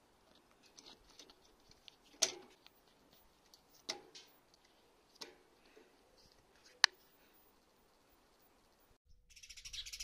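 A few sharp clicks and knocks from handling a plastic-lidded wire suet-ball feeder, the sharpest near the end of the handling. About nine seconds in, dense, fast chirping of small garden birds starts up.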